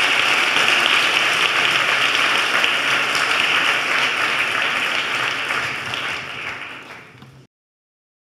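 Audience applause, steady, fading after about six seconds and cutting off abruptly near the end.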